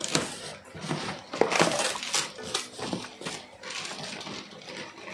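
Plastic fish-transport bags crinkling and rustling as they are handled and lifted out of a carton, with irregular sharp crackles.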